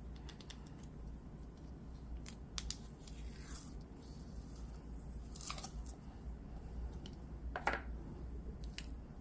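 White glue pumice slime being squished and stretched by hand, giving a few scattered crackles and pops, the loudest near the end, over a faint steady low hum.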